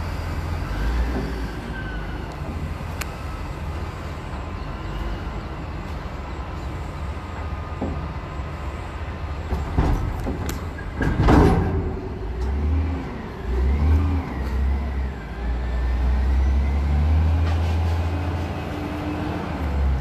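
Diesel engine of a reach stacker running and revving as it lowers a shipping container onto a rail flat wagon. A single loud metal clank comes a little past halfway as the container and spreader meet the wagon, and the engine revs up again near the end as the boom lifts away.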